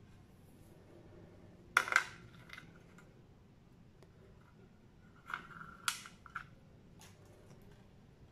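Small metal clicks and taps from jewellery pliers, wire and steel beads worked on a metal hoop earring: a quick cluster of sharp clicks about two seconds in and another around five to six seconds in, each with a brief metallic ring.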